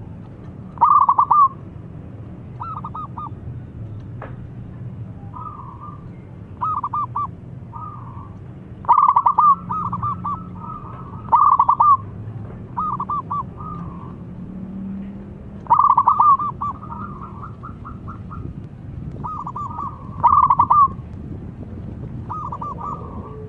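Zebra dove (perkutut) singing: short phrases of rapid, staccato cooing notes repeated every couple of seconds. Five loud phrases stand out, with quieter phrases between them, and two of the loud phrases run longer than the rest.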